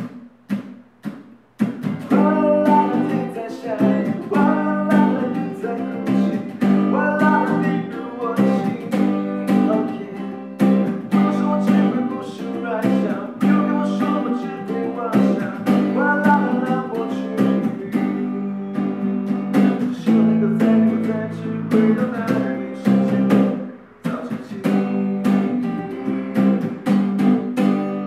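Cross Guitar skeleton-frame travel guitar strummed in chords, amplified through a small 10-watt speaker. A few separate strokes come first, then steady rhythmic strumming from about two seconds in, and the last chord is left ringing at the end.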